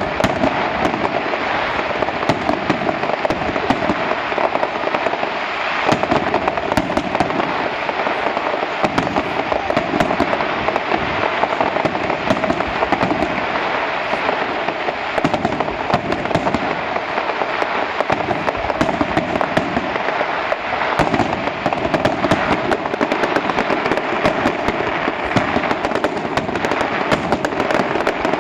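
Fireworks display: a dense, unbroken crackle of many small bursts and pops, with sharper cracks scattered throughout.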